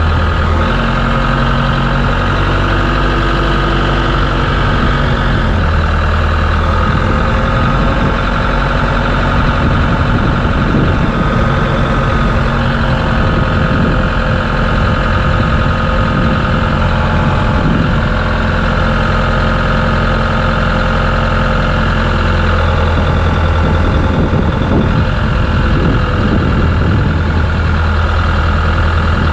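M62 military wrecker truck's engine running steadily while its crane works, the engine note shifting a few times.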